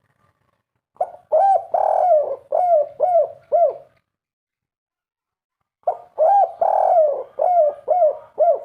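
Spotted dove cooing: two phrases a few seconds apart. Each is a quick run of about six arched coos, with a longer coo third in the run.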